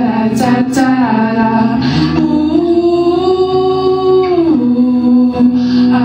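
Live music with singing: a voice holds one long note from about two seconds in to about four and a half seconds, over a steady accompaniment.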